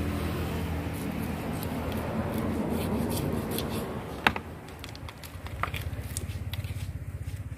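Knife cutting through a whole tuna on a cutting table: wet scraping and squishing cuts with small clicks, a sharp knock about four seconds in and a smaller one a little over a second later as the blade meets bone or board. A low steady hum runs underneath.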